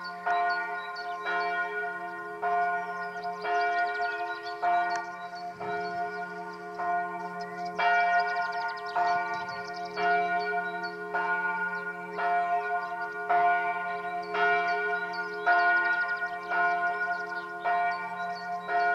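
Several church bells of the Benediktbeuern abbey church ringing together in a peal, with fresh strikes about once a second and the tones overlapping into one continuous ringing chord.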